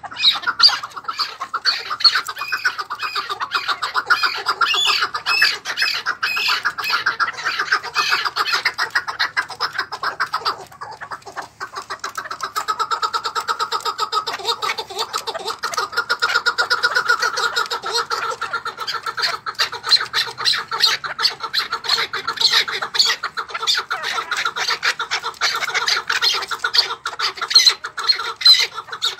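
Several caged chukar partridges calling together: a fast, continuous run of chucking notes from more than one bird, with a brief lull about eleven seconds in before the calling picks up again.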